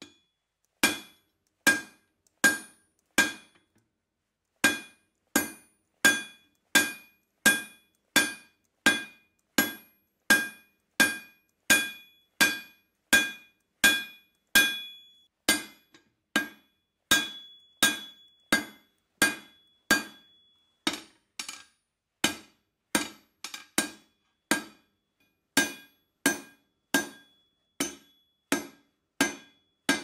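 Blacksmith's hand hammer forging a glowing 1/2 by 1 inch steel bar on an anvil: a steady run of blows, a little more than one a second, each with a short metallic ring. There is a brief pause about four seconds in, and some lighter, uneven taps a little past the middle.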